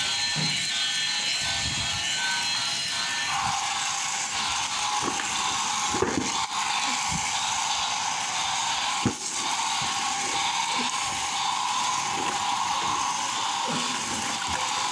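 Battery-powered toy train running on its plastic track, its small motor giving a steady high whir. Its built-in sound unit plays electronic tones that stop about three seconds in. A couple of sharp knocks come near the middle.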